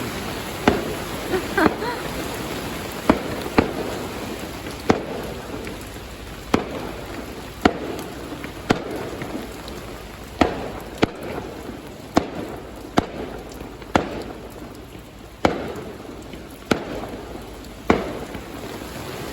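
Fireworks exploding in an aerial display, sharp bangs at uneven intervals of about a second, over the steady patter of falling rain.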